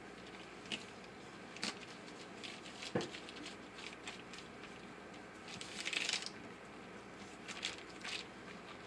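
Faint crinkling and clicks of a zip-top plastic freezer bag of mashed peaches being pressed flat and sealed, with a longer rustle about six seconds in.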